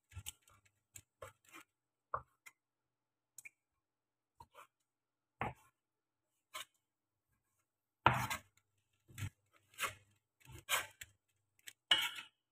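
Kitchen cleaver chopping food on a plastic cutting board in irregular single knocks. The chops get louder and closer together about two-thirds of the way through.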